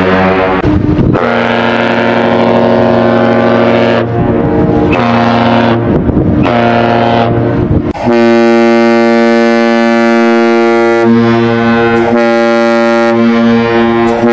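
Great Lakes freighter air horns sounding long blasts: first the horn of the MV Edgar B. Speer, with short breaks in it, then after a cut about eight seconds in, one long steady blast from the MV Mesabi Miner's horn.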